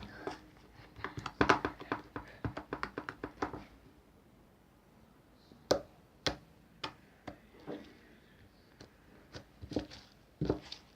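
Slime being squeezed and poked by hand, giving a quick run of wet clicks and pops in the first few seconds, then scattered single pops.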